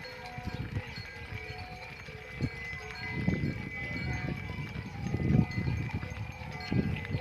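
Bells on a walking herd of cows ringing and clanking on and off at several different pitches, with low rumbles at irregular moments.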